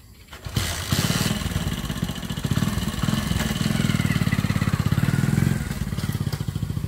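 Small commuter motorcycle engine starting about half a second in, then running with an even putter. It grows a little softer near the end as the bike pulls away.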